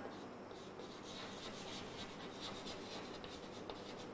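Chalk writing on a blackboard: faint scratching with many short, quick strokes.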